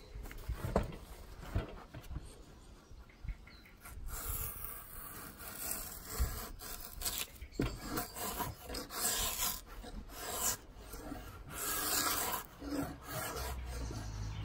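Draw knife scraping the outer bark off a lime (linden) pole in repeated, uneven strokes, stripping it down to the bast layer used for cordage.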